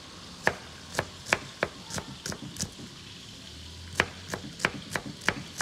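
A kitchen knife chopping on a cutting board: a run of sharp, separate strikes, about two or three a second, pausing briefly about halfway through before the chopping resumes.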